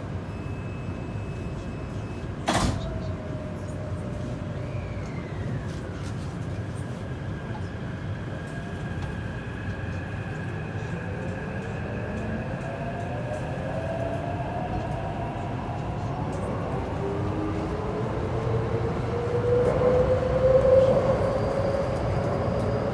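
Taipei Metro train heard from inside as it pulls away, over a steady rumble. A single sharp knock comes about two and a half seconds in. Then the electric traction motors' whine slowly rises in pitch as the train picks up speed, growing louder near the end.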